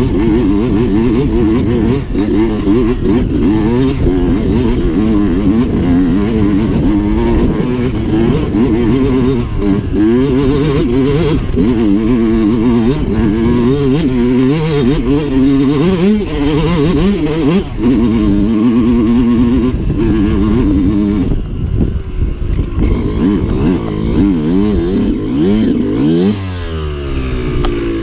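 Enduro dirt bike engine revving up and down with the throttle while riding over rough ground. Near the end the revs fall away and it settles to idle as the bike pulls up.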